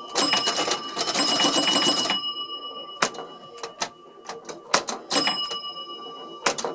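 1971 Bally 4 Million BC electromechanical pinball machine in multiball play: a dense clatter of relays, score reels and bumpers with bell-like ringing tones for about two seconds, then scattered single clicks, then another burst of clatter near the end.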